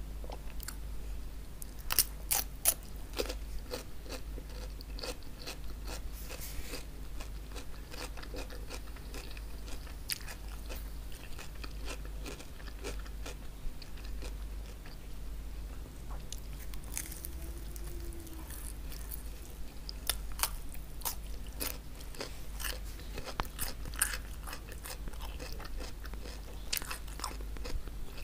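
Close-miked biting and chewing of crispy chicken hawawshi bread and raw cucumber: clusters of crisp crunches, loudest a couple of seconds in, with quieter chewing between.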